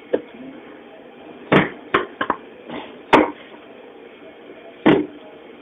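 About six sharp knocks and thuds at irregular intervals as blocks of cheese are handled and cut on a work counter.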